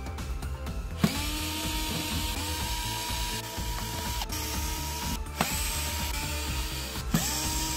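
Cordless electric screwdriver running in short runs as it backs screws out of a plastic tool housing. Its small motor starts three times, each time with a whine that rises and then holds steady, over a gear hiss.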